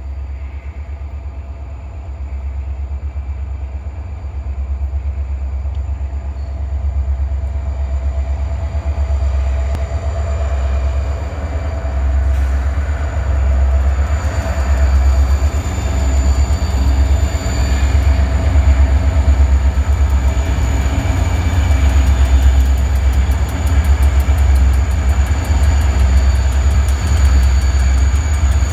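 Approaching diesel freight train led by locomotive MQT 3390: a deep, pulsing engine rumble that grows steadily louder as the locomotives draw near and start to pass.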